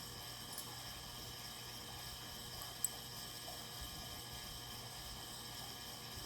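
Low, steady hum and hiss of a household heating and cooling fan, with a single short click about three seconds in.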